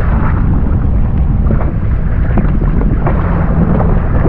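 Wind buffeting the microphone over water sloshing and splashing against a jet ski's hull, a steady loud rumble.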